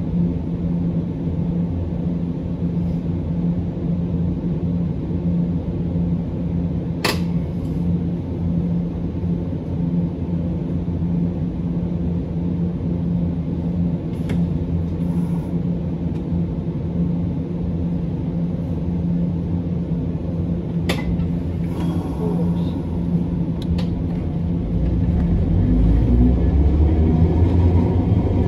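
Inside a Hiroshima Electric Railway 1900-series tram (ex-Kyoto city tram): a steady hum over a low rumble, with two sharp clicks, one about 7 seconds in and one about 21 seconds in. Near the end a deeper rumble builds as the tram gets moving.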